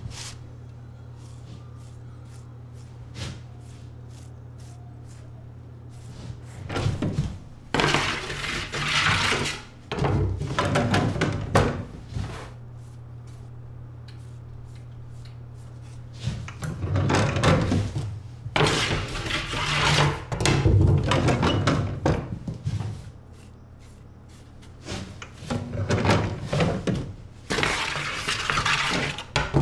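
Scraping, knocking and clattering from a wooden bread peel and a deck oven during loading, in three long stretches over a steady low hum. Near the end the peel scrapes across the oven's hearth as the loaves go in.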